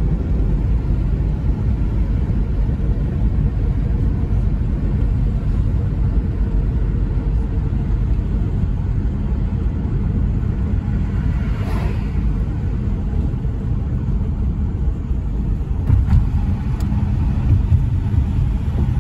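Steady low road rumble of a car driving, heard from inside the cabin. About twelve seconds in, an oncoming car passes with a brief swell, and a few louder bumps come near the end as the car rolls onto a steel truss bridge.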